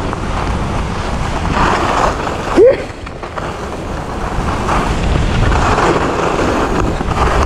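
Skis scraping over groomed snow, the hiss swelling with each turn, over a steady rumble of wind buffeting the action camera's microphone. A short, loud rising cry cuts in about two and a half seconds in.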